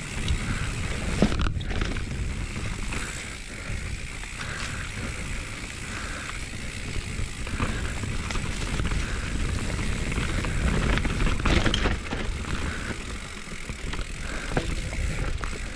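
Mountain bike rolling down a rough forest trail over leaves, roots and rocks: a steady rumble of the tyres with the bike rattling and knocking over bumps, the loudest jolts about a second in and again near the end.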